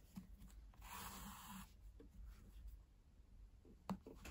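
Faint rasp of yarn being drawn through crocheted stitches for about a second, shortly after the start, then a small tick near the end; otherwise near silence.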